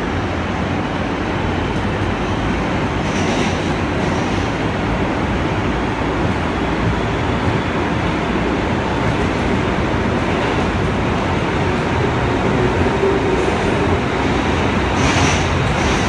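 New York City Subway R160 train running, a steady rumble of wheels on track. Two brief higher-pitched noises come through, about three seconds in and again near the end.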